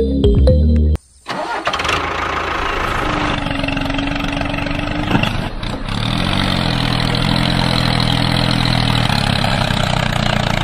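Music breaks off about a second in, then a tractor engine starts and runs, its pitch wavering a little as the tractor struggles in mud.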